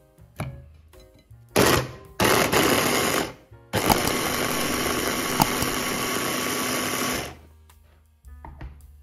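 Electric food chopper blending orange segments to pulp: the motor runs in two short pulses, then once more steadily for about three and a half seconds before stopping. Light background music underneath.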